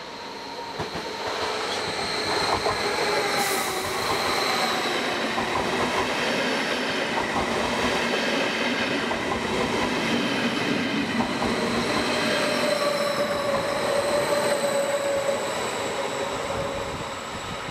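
Stadler KISS double-deck electric multiple unit running past close by. Its wheels and drive give a rumble with steady high-pitched whining and squealing tones. It builds over the first two seconds and eases off near the end.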